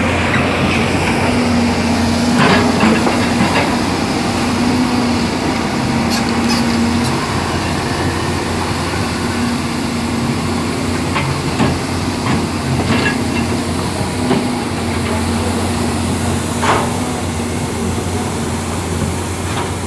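Hydraulic excavator's diesel engine running steadily under load, with a humming tone that fades in and out and a few short metallic knocks scattered through.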